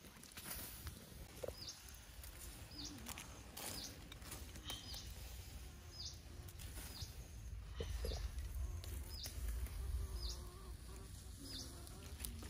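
A bird repeating one short, high call about once a second, over a low rumble with a few scattered light clicks.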